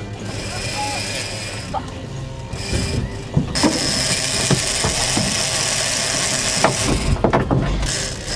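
Big-game trolling reel being cranked hard under the load of a hooked fish, its gears and clicker ratcheting, with scattered clicks.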